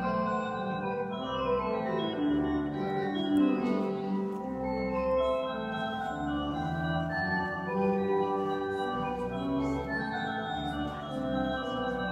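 Organ music, the postlude: held chords and a moving melody line, with notes changing every half second or so.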